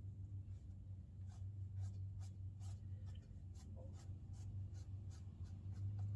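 Small watercolour brush dabbing and stroking on watercolour paper in quick, faint scratchy touches, about two or three a second, over a steady low electrical hum.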